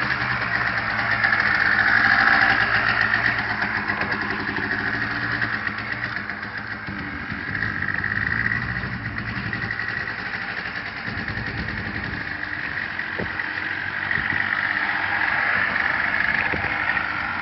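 ATV engine running as the four-wheeler is ridden on light throttle, the engine note swelling about two seconds in and then easing back.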